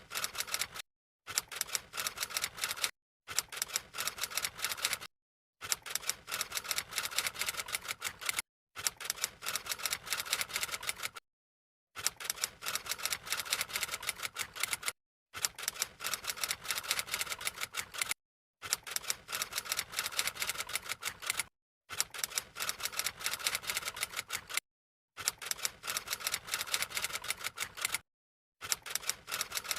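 Rapid, dense clicking and crackling handling sounds, in short stretches separated by abrupt gaps of dead silence.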